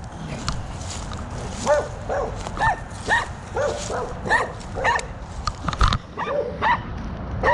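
A dog barking repeatedly: short, high-pitched barks in quick runs, about two or three a second, starting after a brief pause.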